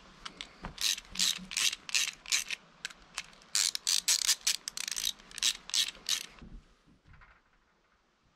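Rapid runs of metallic ratchet clicks as a ratcheting wrench is worked by hand on a bolt and socket, stopping about six seconds in.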